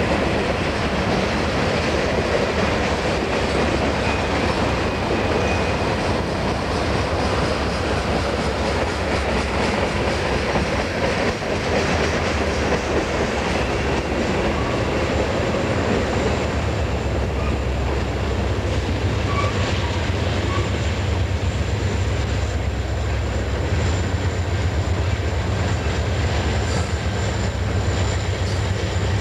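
A train's cars rolling steadily past on the rails, with a thin high wheel squeal coming in about halfway through.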